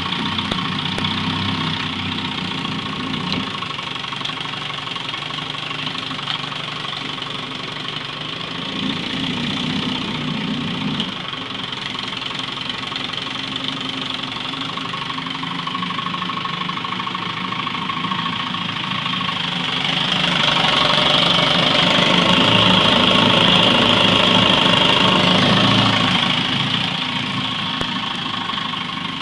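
Johnson Sea-Horse 10 hp two-stroke outboard motor running steadily in a test tank, its propeller churning the water. About two-thirds of the way through it gets louder and higher for several seconds, then settles back to its lower running speed. The motor is freshly tuned up.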